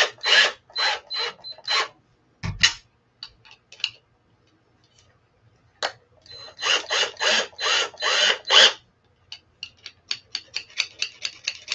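Keyless chuck of a cordless drill being twisted by hand in short ratcheting runs of clicks as a very small drill bit is fitted. The bit is too small for the chuck to grip.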